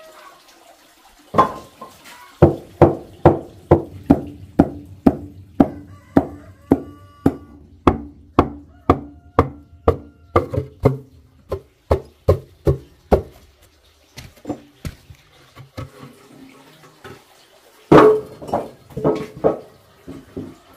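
Hammer striking brick inside a brick cooking stove's firebox: a long run of sharp, evenly paced blows, a bit over two a second, then a pause and a short second cluster of blows near the end.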